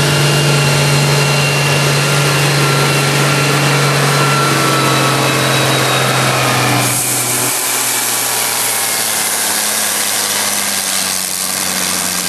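Antique tractor engine running steadily under load as it pulls a weight truck. About seven seconds in the sound changes abruptly to a different, quieter engine note.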